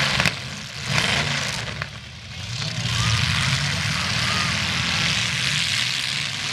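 Several demolition derby cars' engines running and revving at a distance, swelling and easing, with two sharp knocks in the first two seconds.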